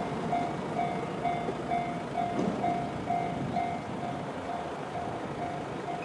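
Japanese railway level crossing's electronic warning bell, the JR standard tone, ringing in an even repeating ding of about two a second. It warns that a train is approaching and the barriers are closing.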